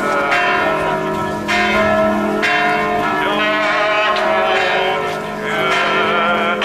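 Several church bells pealing together, with fresh strikes roughly once a second and overlapping tones ringing on between them.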